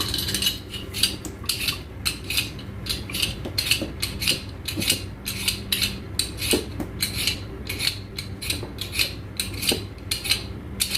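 Potato peeled with a vegetable peeler: short scraping strokes against the skin, repeated about two to three times a second.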